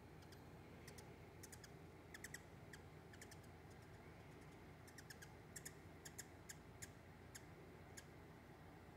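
Hummingbird giving faint, high, sharp chip calls, singly and in quick clusters of two or three.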